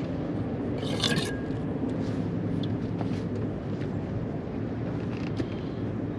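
Boat motor running steadily with a low hum. A short burst of noise about a second in, and a few light clicks scattered through.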